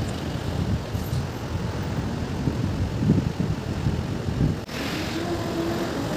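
Roadside traffic: a low, uneven rumble. After a cut about four and a half seconds in, a car and a motorcycle go by, with a steady engine hum near the end.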